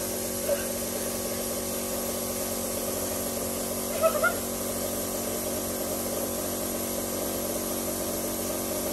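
Air compressor running steadily while compressed air hisses through a hose into a giant latex balloon, inflating it. There are a few brief squeaks about half a second in and around four seconds in.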